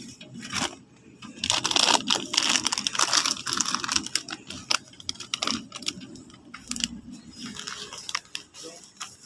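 Rustling and crinkling handling noise close to the microphone, in irregular bursts with small clicks, loudest from about a second and a half in to about four seconds in, then lighter.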